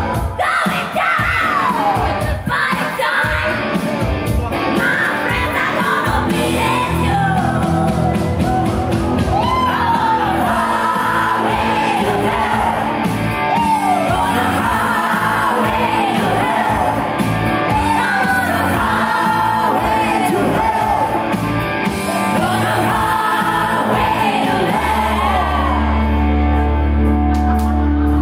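A woman sings a melody with wide swoops in pitch over a live band of electric guitar and keyboard. A few seconds before the end her voice drops out and the band holds a sustained low chord.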